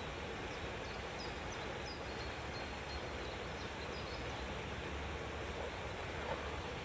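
Steady background hiss with faint, short high chirps of small birds scattered through it.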